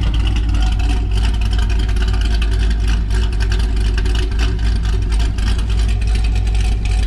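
Car engine noise with a heavy, steady low rumble.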